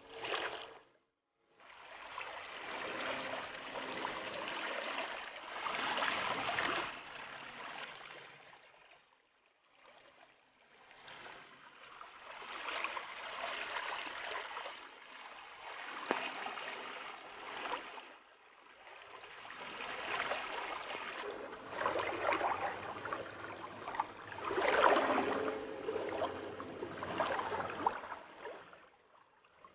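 Muddy floodwater from heavy rain rushing and churning across a yard and down a bank, a steady watery rush that swells and fades. It drops away briefly twice, about nine and eighteen seconds in.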